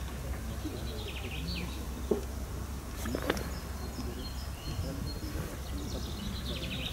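Outdoor waterside ambience: a steady low rumble with short bird chirps now and then, and two short knocks, one about two seconds in and another about a second later.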